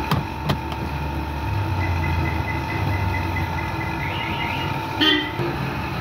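Street traffic: a motor vehicle engine rumbling steadily, louder for a couple of seconds in the middle, with a short horn toot about five seconds in. Two sharp clicks come at the very start.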